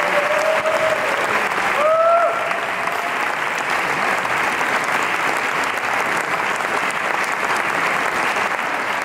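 Theatre audience applauding steadily, with a couple of short cheering calls in the first two or three seconds.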